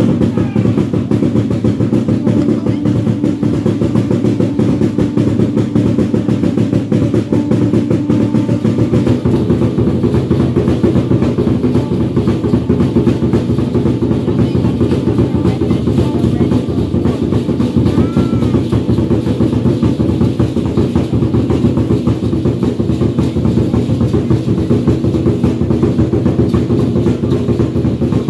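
Fast, steady drumming for a traditional Maya dance, over a low sustained tone.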